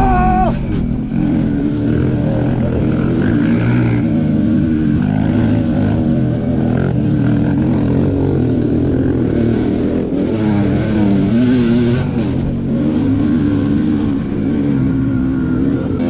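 Kawasaki KMX125's single-cylinder two-stroke engine, fitted with a VForce 3 reed valve, revving up and down through the throttle on a dirt trail, heard from on board the bike.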